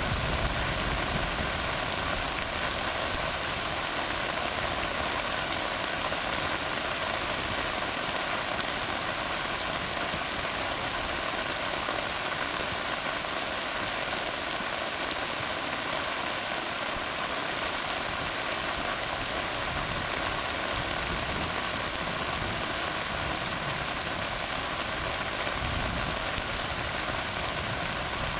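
Steady rain falling on a tar road: an even hiss of many drops with scattered sharper drop ticks.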